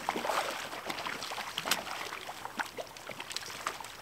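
Shallow creek water running over a riffle, with scattered small splashes and sloshing as a wading angler plays a hooked fish.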